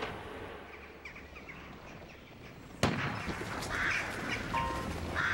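Birds calling over an outdoor ambience that comes in abruptly about three seconds in; before that there is only a faint hiss.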